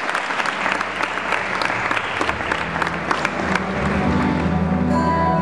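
Audience clapping, the applause thinning out about three and a half seconds in as instrumental music comes up and takes over.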